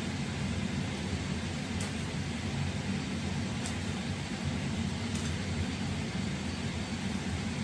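A steady low machine hum, with three faint sharp clicks about two seconds apart as kitchen scissors snip.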